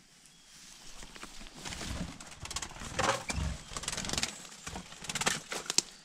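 Dry grass, twigs and pine needles rustling and crackling as they are brushed and stepped through, with low thumps of handling against the wearable camera, from about a second in. A short quail chirp comes about three seconds in.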